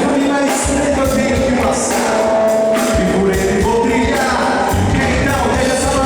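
Live worship band playing a praise song, with drums, bass and singing voices.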